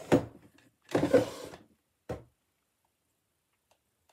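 Household handling noises: a sharp knock, a short scraping rub about a second later and a click, then quiet.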